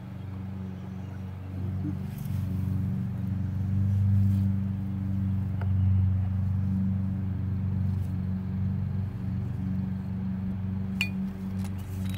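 A steady low hum, with a few light clicks of a plastic hose connector knocking against a metal outdoor hose faucet as it is fitted and taken off.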